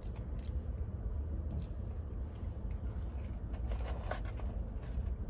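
A man chewing seasoned curly fries: faint crunching and mouth sounds, a few sharper bites around the fourth second, over a steady low hum.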